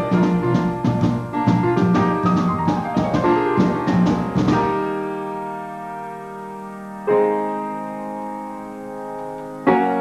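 Jazz combo of drum kit, fretless electric bass and piano playing a busy, fast passage that stops about halfway through. Piano chords then ring out with long decays, struck again twice.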